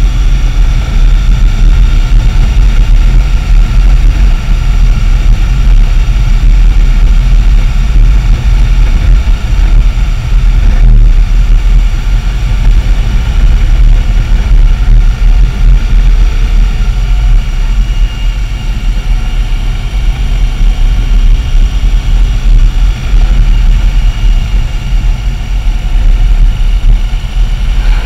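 Motorcycle riding at a steady speed, recorded by a camera mounted on the bike. Wind buffeting on the microphone and the engine's note blend into a loud, steady low rumble.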